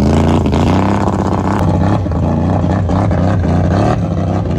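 ATV engine running at high revs under heavy load while the quad is driven through deep mud water.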